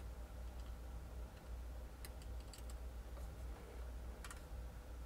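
Faint, light clicks of small metal parts being handled inside the receiver of a Marlin 1895 lever-action rifle as the ejector is set into its groove: a few clicks about two seconds in and one more about four seconds in, over a low steady hum.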